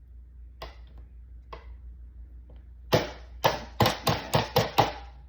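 Vegetable chopper knocking sharply and repeatedly: two light knocks, then about seven hard clacks in quick succession, roughly three or four a second, about three seconds in.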